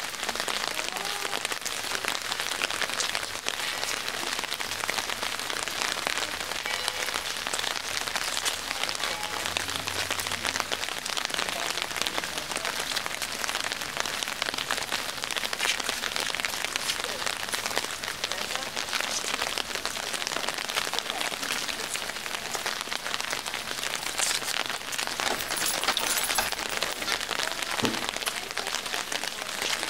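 Steady rain falling, with a dense run of small drop hits close by.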